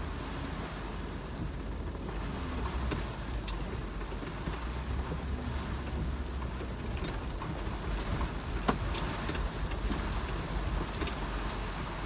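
Vehicle cabin noise while driving slowly over a rough, wet dirt track: a steady low engine and road rumble, with a few sharp knocks scattered through.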